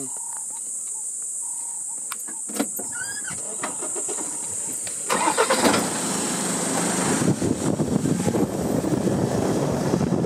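A steady shrill insect chorus with a few light clicks and a brief bird chirp. About five seconds in, a vehicle engine starts suddenly and keeps running, a rough noise that covers the insects as the vehicle moves off.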